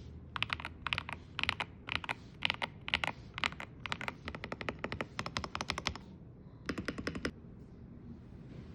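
Typing on an AULA F108 Pro full-size mechanical keyboard with Gyeonghae switches: quick clusters of key clicks about twice a second, a denser flurry near the end, then the keys stop.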